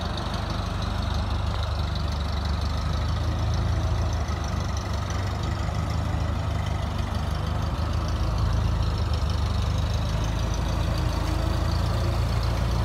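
Engine of a propane-fuelled Clark forklift running steadily as it drives out of a shop bay: a low, even hum that grows a little stronger near the end.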